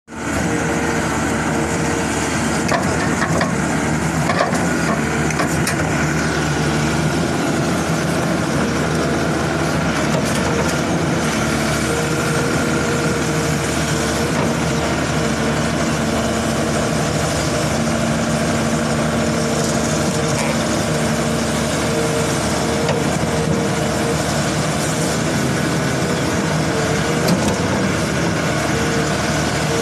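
Volvo crawler excavator's diesel engine running steadily under load while its vertical ripper attachment breaks up overburden rock, with a steady drone and a few knocks as rock is struck.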